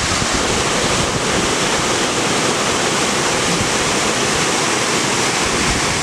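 Waterfall cascades plunging into a pool: a steady, dense rush of falling water.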